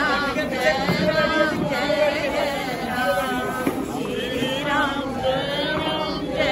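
A group of people singing a devotional chant together, with crowd noise underneath.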